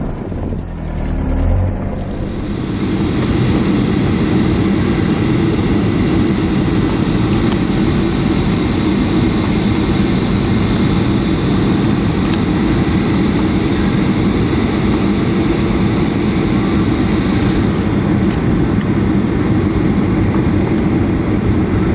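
Steady roar of a jet airliner in flight, heard from inside the cabin: engine and airflow noise with a faint high whine, setting in about two seconds in.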